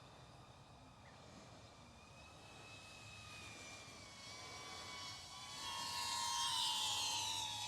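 iFlight ProTek35HD cinewhoop FPV drone's motors and ducted propellers whining in flight, the pitch shifting with throttle. It grows louder from about halfway through and is loudest near the end.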